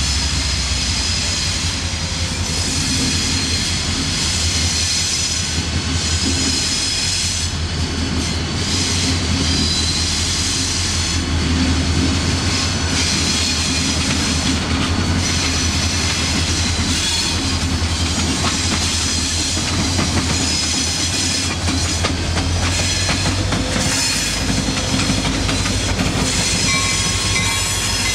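A lash-up of diesel-electric freight locomotives approaching and passing close by, their engines making a loud steady low drone. In the later part the clatter of wheels over the rails joins in as the units go past.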